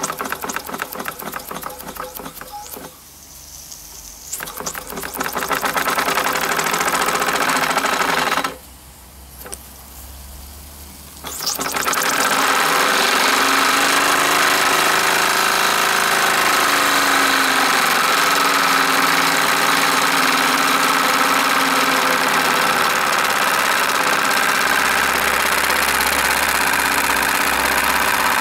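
Mamod SE3 toy steam engine running with a fast, even clicking beat. About twelve seconds in, the boiler's safety valve lifts and blows off steam with a loud, steady hiss that carries on.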